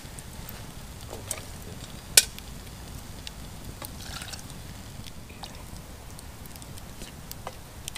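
Chunky game stew being poured from one camp pot into another, with scattered sharp clicks, the loudest about two seconds in.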